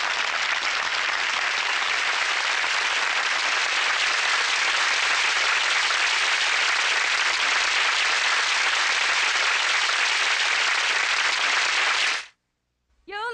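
Studio audience applauding steadily, fading out about twelve seconds in.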